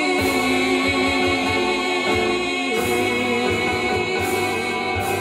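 Three women's voices in close harmony holding the final notes of a 1940s-style song with vibrato over an instrumental backing, the chord moving to new notes about two seconds in.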